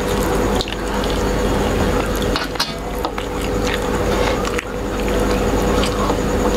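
Fingers mixing rice and curry on stainless steel plates: wet squishing with many small clicks and taps against the metal, over a steady background hum.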